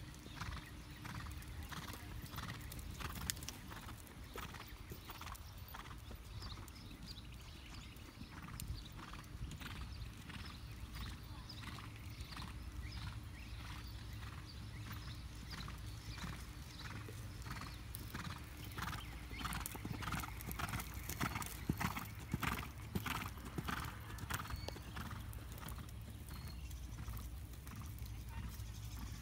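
Hoofbeats of a Rhinelander gelding working on the sand footing of a dressage arena, an even rhythm of about two to three strikes a second, louder around two-thirds of the way through.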